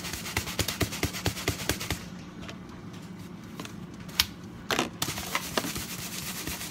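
A lidded plastic Tupperware container of breadcrumbs with an egg-dipped pork chop inside being shaken, a fast rattling for about two seconds. This is followed by a few separate clicks and a knock of plastic and a fork as the container is handled.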